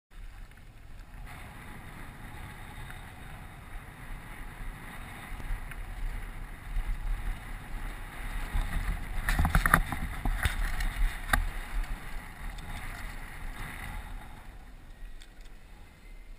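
Wind rushing over a helmet-mounted camera as a downhill mountain bike rolls over a dirt and gravel track, with tyre noise underneath. It grows louder toward the middle, where a few sharp clatters of the bike over bumps stand out.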